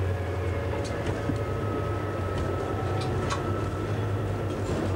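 Diesel engine of a DSB MK shunting locomotive running steadily, heard from inside the cab as it rolls slowly along the track. A few light clicks and a faint thin whine come through over the engine hum.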